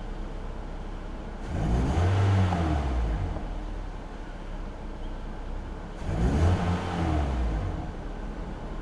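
2007 Pontiac Vibe's four-cylinder engine idling and revved up and back down twice, about two seconds in and again about six seconds in, running on a freshly replaced fuel pump assembly.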